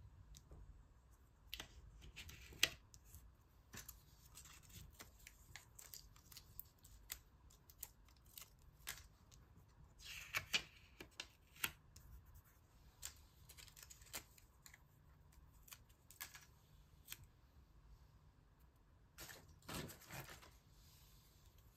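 Quiet, irregular snips and clicks of scissors and stiff magazine paper being cut and handled, with a couple of short paper rustles about ten seconds in and near the end.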